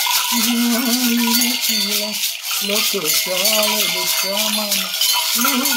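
Gourd rattles and bunches of small metal bells shaken continuously, with a man's voice chanting in held, level notes over them.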